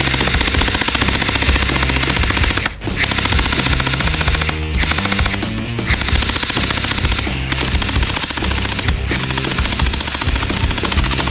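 Toy AK-47 submachine gun's electronic rapid-fire sound effect, rattling in long bursts with short breaks, over background music.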